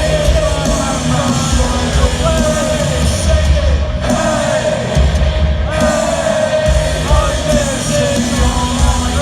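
A live rock band playing loudly, with heavy bass and amplified singing.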